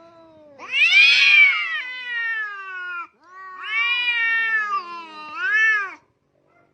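A cat giving three drawn-out meows, each sliding down in pitch; the first is the longest and loudest, the third is short.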